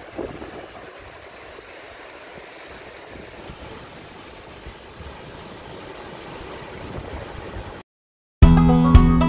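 Small waves breaking and washing up on a sandy shore, a steady wash of surf. Near the end the surf cuts off, and after a brief silence louder background music with a steady beat begins.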